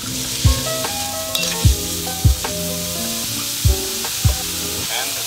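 Diced carrot and celery sizzling in hot oil in a wok as they are stirred with a metal spatula. Laid-back lo-fi hip-hop music with a steady kick drum plays over it.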